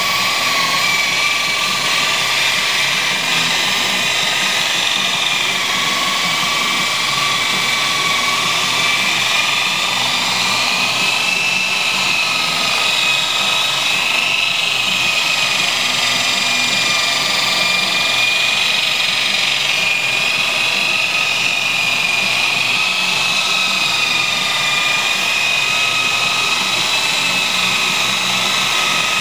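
Handheld electric polisher with a buffing wheel running steadily as it polishes a flatbed truck's metal side rail: a continuous high motor whine whose pitch wavers slightly as the wheel is pressed and moved along the metal.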